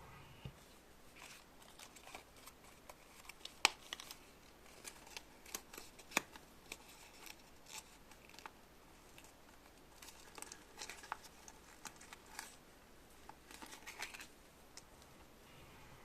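Small objects being handled close by: scattered light clicks and rustling, with two sharper clicks, one a few seconds in and one at about six seconds.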